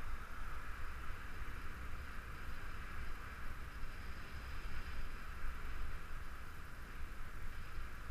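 Wind rumbling on a bike-mounted camera's microphone while riding, over a steady hiss of road and riding noise.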